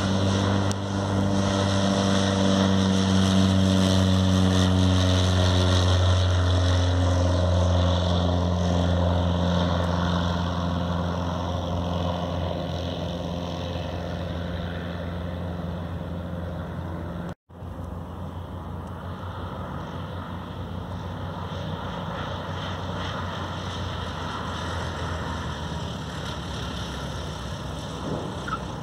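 Light high-wing propeller plane's piston engine at takeoff power as it rolls down the runway and climbs away, the drone dropping slightly in pitch as it passes and fading over about fifteen seconds. After a brief cut in the sound just past halfway, a quieter steady engine rumble continues.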